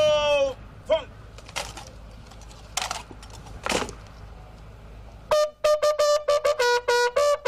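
Bugle sounding a salute to the honour guard: a held note dies away at the start, then from about five seconds in a fast run of short, clipped notes.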